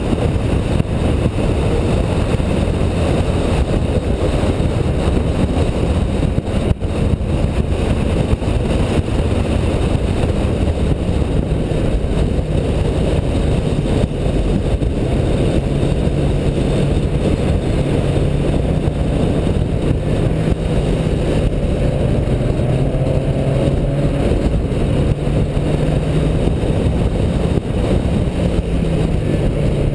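Car engine running hard around a race track, with heavy road and wind noise; the engine pitch rises and falls with speed.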